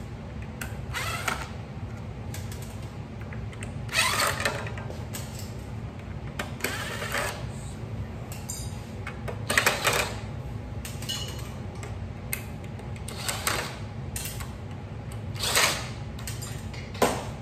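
DeWalt cordless drill run in short spins, about ten over the stretch, backing out the fasteners that hold a shaped aluminum panel to its buck, over a steady low shop hum.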